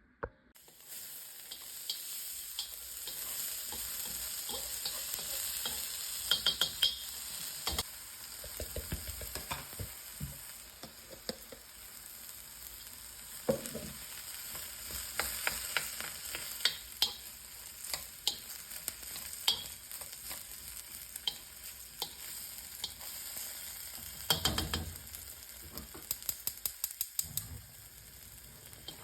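Food sizzling in a frying pan while a utensil stirs it, with frequent sharp clicks and scrapes of the utensil against the pan.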